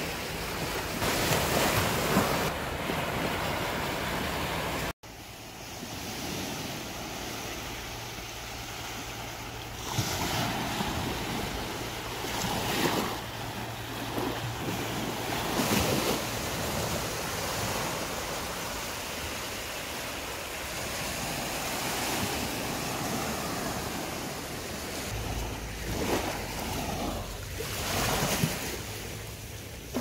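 Small waves breaking and washing up a sandy beach, swelling and easing every few seconds. The sound drops out for an instant about five seconds in.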